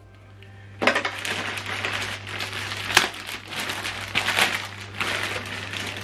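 Clear plastic bag crinkling and rustling as it is pulled open and handled, with many small crackles. It starts about a second in.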